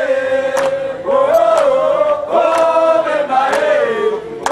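A crowd of people chanting a song together in unison, in long held phrases, with occasional claps.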